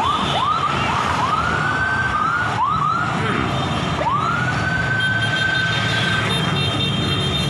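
Siren giving a string of short rising whoops, then one long rising wail held for about two seconds, over the steady rumble of motorcycle and car engines in a passing motorcade.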